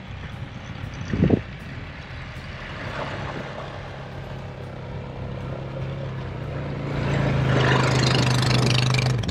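Quad ATV engine running at a steady pitch, growing clearly louder about seven seconds in as the quad comes up close.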